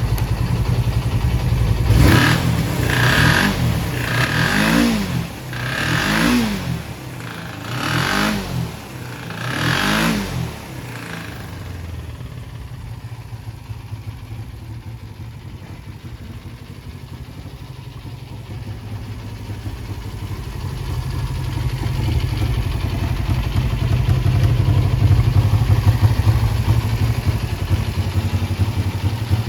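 Suzuki GSX400E 399 cc parallel-twin motorcycle engine blipped about five times in quick succession, each rev rising and falling, then settling back to idle. The seller reports an abnormal noise from the engine's bottom end.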